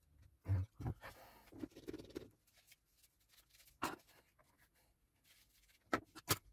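Small parts of a soldering station being handled and fitted during reassembly: scattered sharp clicks and knocks, with a rough scraping for about a second soon after the start.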